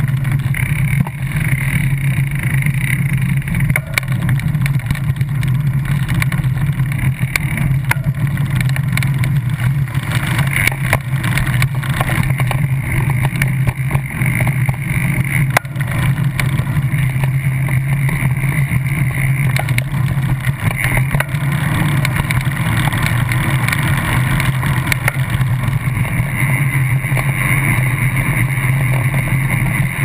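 Steady low rumble of wind and road noise from a moving bicycle, picked up through a bike-mounted camera, with scattered small knocks.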